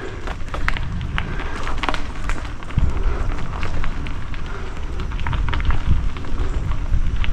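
Mountain bike rolling along a dirt trail: tyres crunching over gravel and roots, with frequent sharp clicks and rattles from the bike and wind buffeting the microphone in a low rumble.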